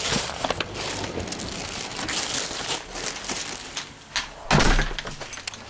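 Rustling and scattered knocks, with one heavy thump about four and a half seconds in.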